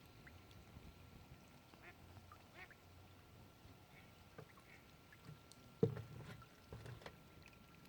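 Ducks quacking faintly, a few short scattered calls, the loudest about six seconds in.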